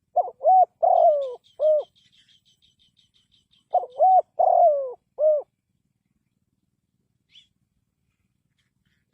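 Spotted dove cooing: two phrases of four notes each, the second about three and a half seconds after the first. Between them a faint, fast run of high chirps, and one faint high chirp near the end.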